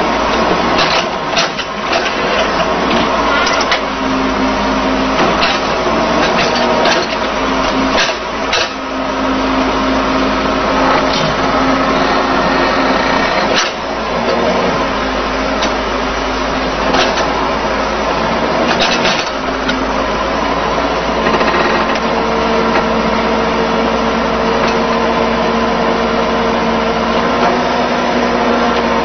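Excavator engine and hydraulics running steadily under working load, with repeated sharp metallic clanks and knocks. The pitch of the machine's hum changes about two-thirds of the way through.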